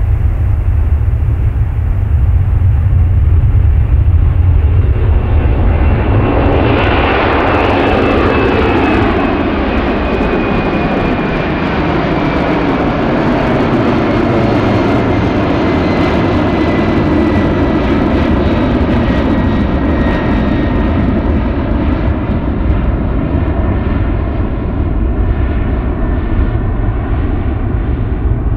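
Jet airliner passing close by: a low rumble builds into a loud engine roar about six seconds in, with a whine that falls in pitch as it goes past, then a steady roar.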